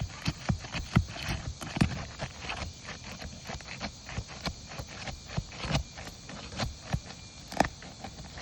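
Irregular taps, knocks and scrapes of roofing tools, a roof snake and a hatchet, working under asphalt shingles to break the seal and get at the nails, with a few louder knocks scattered through.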